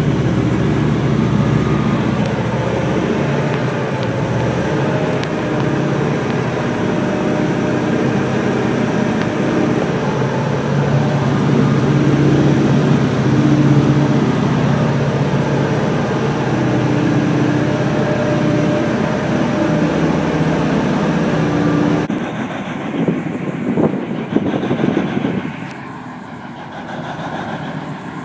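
Inside the cab of a large mining haul truck under way: its big diesel engine and drive run with a steady drone and a faint high whine. About 22 seconds in, this cuts abruptly to a quieter, uneven rumble of a haul truck passing outside.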